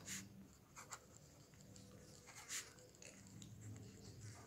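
Faint scratching of a pen writing on notebook paper, in a few short strokes.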